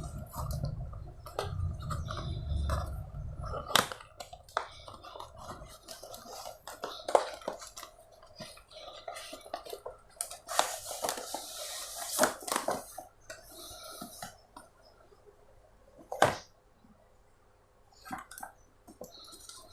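Hands opening a parcel: packaging rustling and crinkling amid scattered clicks and taps, with a longer, louder rustle from about ten and a half to thirteen seconds in.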